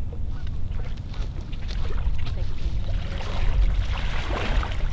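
Legs wading through shallow lake water, the splashing getting louder from about three seconds in, over a steady low rumble of wind on the microphone.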